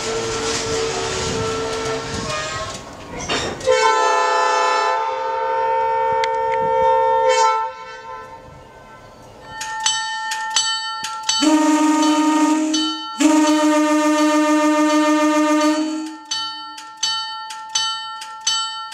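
A train rumbling slowly along the track, then a long blast on the train's horn. After that the train's bell rings steadily to the end, with two more horn blasts sounding over it.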